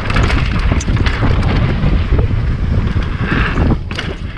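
Wind buffeting the microphone over the rumble of a mountain bike's tyres on a rough dirt trail, with many quick knocks and clatters from the bike bouncing over bumps. The noise eases briefly near the end.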